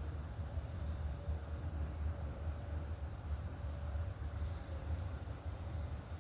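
Outdoor ambience: a steady low rumble with scattered short, high bird chirps, and a faint steady tone underneath.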